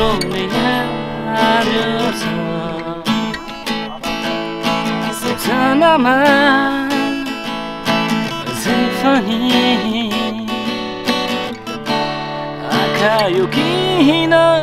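A man sings to his own strummed Crafter acoustic guitar, a slow song with long, wavering held notes.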